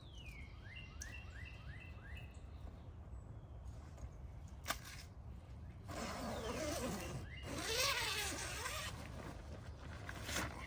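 A wild bird calls near the start: a falling whistle, then a quick run of about five short down-slurred chirps. About six seconds in comes a few seconds of louder rustling and scuffing, like steps through brush and dry leaves.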